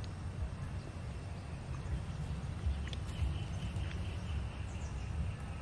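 Outdoor background of wind rumbling on the microphone, with a few faint high chirps and small clicks.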